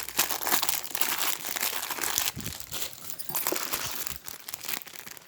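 Packaging being handled and crinkled in quick, irregular crackles that thin out toward the end.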